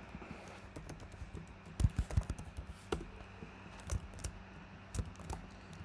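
Computer keyboard typing: scattered key clicks in a few short runs.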